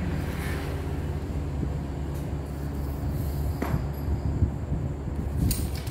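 Steady low background hum with a few faint clicks from a telescoping pole pruner being handled, about three and a half and five and a half seconds in.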